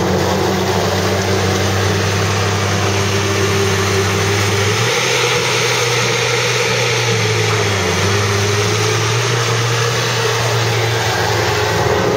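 Quad ATV engines running steadily and loudly, their pitch wavering slightly as they idle.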